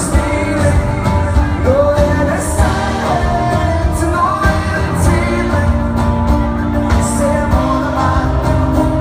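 Live rock band playing: a male singer over acoustic guitar and drums, heard from among the crowd in a large hall.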